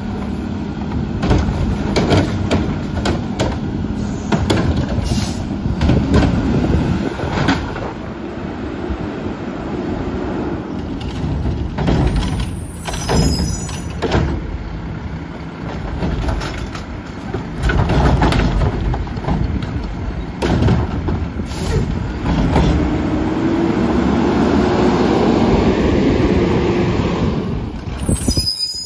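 Front-load garbage truck with a Curotto-Can automated arm at work: the diesel engine revs to drive the hydraulics while the arm grabs, lifts and tips wheeled carts. Repeated clanks and bangs come from the carts and their contents hitting the hopper, and a steady hydraulic whine is heard near the end.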